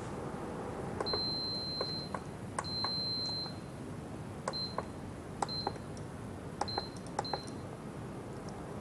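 Induction cooktop touch controls beeping as the buttons are pressed: two beeps of about a second each, then four short beeps, each with a light click of the press.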